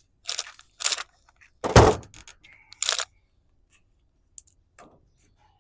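Metal hand tools clattering and rustling as someone rummages through a tool bag. There is a heavier knock about two seconds in, then a few light clicks.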